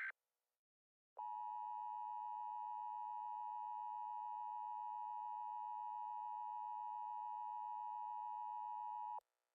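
Emergency Alert System attention signal: a steady two-tone alert tone held for about eight seconds, then cut off abruptly. At the very start, the last instant of a higher-pitched warbling data burst from the SAME header ends just before the tone.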